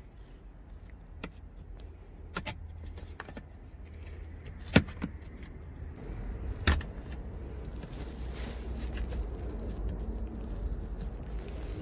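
Metal spanner on a bolt of the car's plastic front undertray: a handful of sharp, irregular metallic clicks and clinks, the loudest about five seconds in, over a low steady rumble of handling noise.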